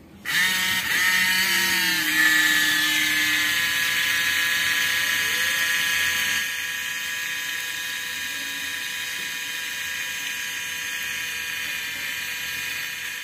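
Small DC hobby motor switching on and spinning up to a steady high whine as it drives a homemade miniature water pump through a rubber-band belt. Its pitch climbs for about the first two seconds and then holds, and it gets a little quieter about six seconds in.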